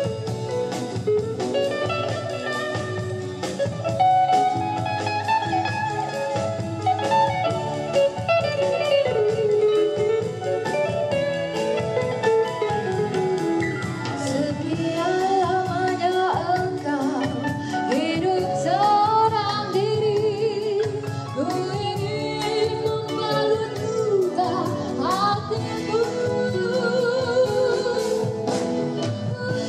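A woman singing into a microphone with a live band of electric guitars, bass, keyboard and drum kit, her voice carrying the melody over a steady beat.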